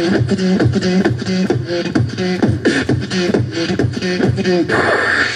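Dubstep-style beatboxing by a man: a repeating rhythm of pitched bass sounds with sharp mouth-made percussive strokes, turning to a hissing sound near the end.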